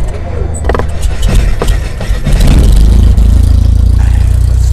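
Loud logo-reveal sound effect: a flurry of sharp crackling hits for the first couple of seconds, settling into a deep, steady, engine-like rumble.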